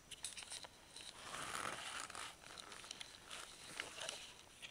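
Faint close rustling and crinkling, with scattered small clicks and ticks, swelling into a longer stretch of rustling about a second and a half in: handling noise of the camera moving.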